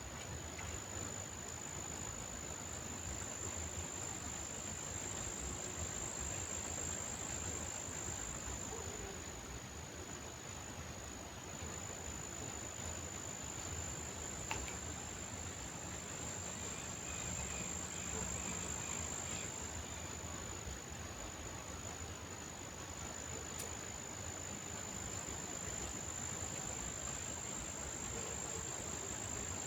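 Insects trilling in one continuous, high-pitched drone that never breaks, over a steady low background rumble.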